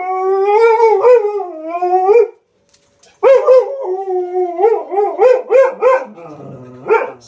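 Malamute–husky cross howling for about two seconds, then, after a short pause, a run of short rising-and-falling howls and moans: the dog's 'talking', which dips into a low moan near the end.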